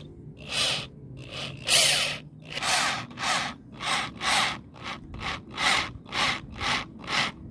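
Short rasping strokes on wood, evenly repeated at about two a second.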